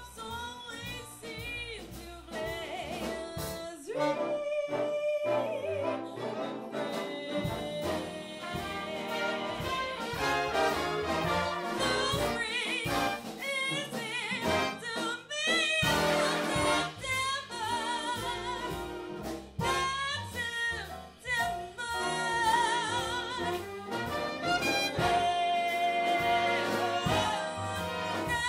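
Big band of trumpets, trombones and saxophones playing a swing arrangement, with a female vocalist singing over the horns.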